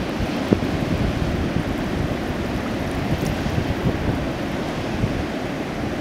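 Steady wind noise buffeting the microphone over the wash of waves on the shore.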